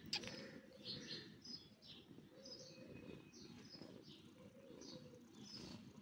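Faint bird chirping in the background: short high chirps about twice a second over a low outdoor hum, with a sharp click at the very start.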